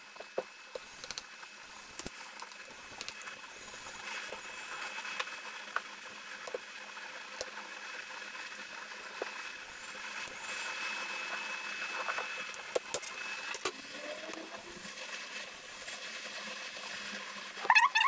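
Faint scratching and scattered small clicks of a precision screwdriver working the screws and plastic bottom cover of a laptop as the cover is taken off.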